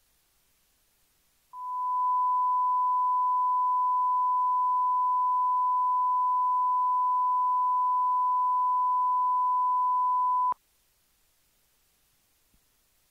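A steady 1 kHz sine test tone, the analog mixer's reference level at −20 VU, starting abruptly about a second and a half in, holding for about nine seconds, and stopping suddenly with a faint click.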